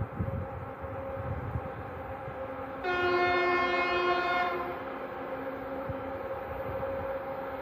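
2TE116U two-section diesel locomotive hauling a freight train sounds its horn once, a single steady blast of about a second and a half a few seconds in. A steady low drone from the approaching locomotive's diesel engines runs underneath.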